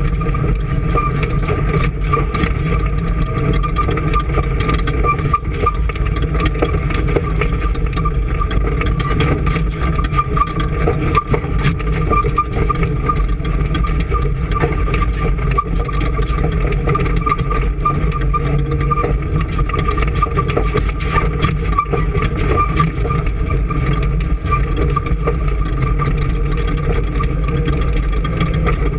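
A machine's engine running steadily, with a thin steady whine above the rumble and many small ticks and rattles throughout.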